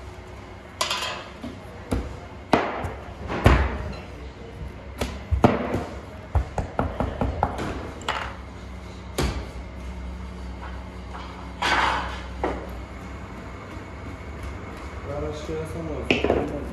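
Scattered sharp knocks and taps, irregularly spaced, from bakers' hands, a plate and tools working flatbread dough on a hard worktable, over a low steady hum, with voices talking briefly near the end.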